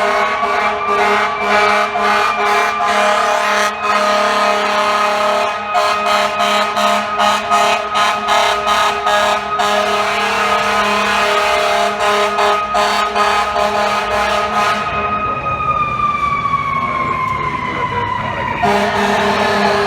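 Fire truck's mechanical siren winding up to a steady wail and winding down from about 15 seconds in. Under it the rig's air horns blast in quick repeated stabs; they stop as the siren falls and sound again just before the end.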